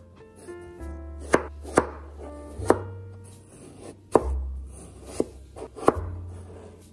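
A chef's knife cutting peeled raw potato on a cutting board, with about six sharp, unevenly spaced knocks as the blade goes through and hits the board. Soft background music plays underneath.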